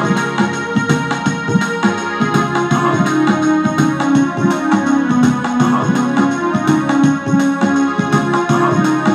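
Casio CTK-6300 portable electronic keyboard playing a kirtan melody in an organ-like voice, single held notes moving step by step over a steady beat.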